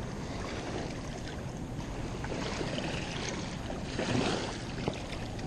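Steady outdoor noise of wind on the microphone and moving river water, with a couple of faint light knocks near the end.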